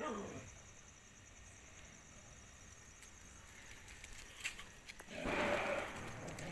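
Street dog giving a short, falling yelp at the start, then a faint steady background, and a louder rough, noisy sound about five seconds in.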